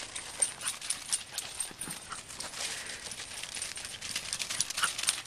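Irregular crunching and rustling of dry fallen leaves and grass underfoot as small dogs run about, with a faint short whine or two.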